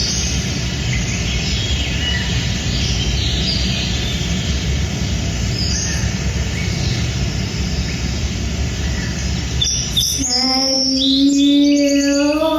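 Rainforest sound effect of scattered bird chirps and calls over a steady low rumble. About ten seconds in, a long, deep, held call starts and falls in pitch near the end.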